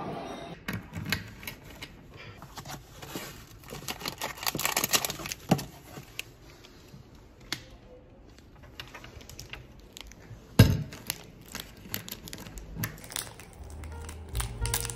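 Rustling and crinkling of packaging and things being handled at a school locker, with scattered small clicks and one sharp knock about ten and a half seconds in. A snack wrapper crinkles near the end.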